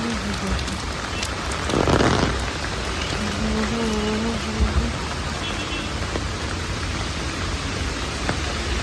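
Steady rain falling, an even hiss, with a brief louder rush about two seconds in.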